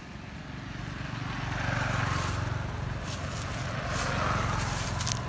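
Motor vehicle engine running with a steady low hum, and road traffic noise that swells about two seconds in and again around four seconds. A few light clicks near the end.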